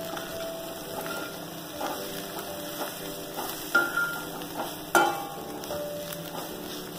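Sliced onions and freshly added ground spices frying in oil in a metal kadai, sizzling steadily while a metal spatula stirs and scrapes through them. The spatula strikes the pan twice in the second half with sharp clanks that ring briefly.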